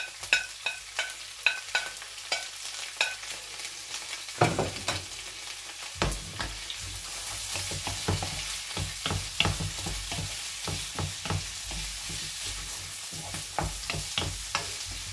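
Chopped vegetables being sautéed in a frying pan: repeated clicks and scrapes of a knife and then a spoon against the pan, with a sizzle that builds up and grows steady about halfway through.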